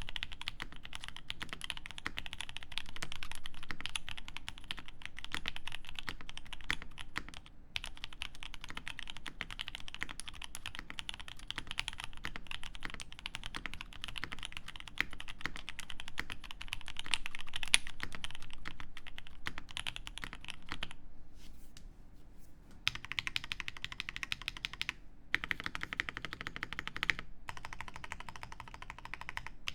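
Fast typing on a TOMO mechanical keyboard with lubed OP Black switches, an aluminium plate and GMK keycaps: a dense run of keystroke clicks, a brief lull about two-thirds of the way through, then more keystrokes in short stretches.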